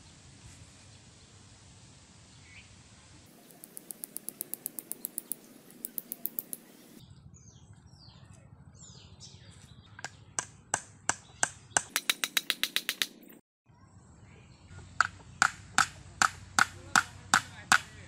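Small hammer knocking a tool into bamboo: first a fast run of light taps, then slower knocks, then a steady run of sharp, louder blows about two or three a second near the end.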